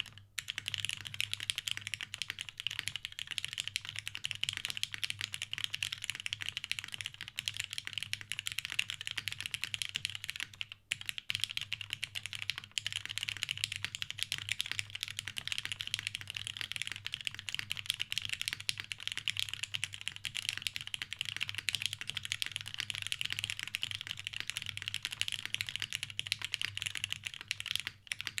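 Continuous typing on a custom mechanical keyboard: lubed Cherry MX Black linear switches on a polycarbonate plate with O-ring mounting, under doubleshot ABS GMK keycaps, a dense steady stream of keystrokes with a brief pause about eleven seconds in.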